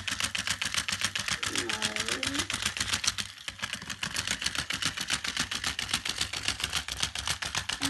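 Chubby Puppies Dalmatian toy's battery-powered motor and leg mechanism clicking rapidly and evenly, about six clicks a second, as the toy waddles along; the clicking briefly falters around three and a half seconds in.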